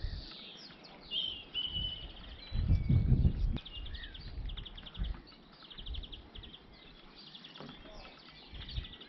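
Songbirds singing, with fast trilled runs of repeated high notes and scattered chirps. A low rumble swells up for about a second, about three seconds in.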